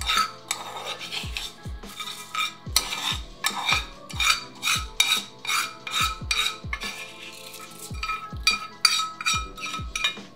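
Metal spoon scraping and clinking against a small cast-iron skillet, in repeated short strokes about twice a second, as the caramelized garlic and rosemary is scraped out into a glass bowl. Background music with a steady kick-drum beat plays underneath.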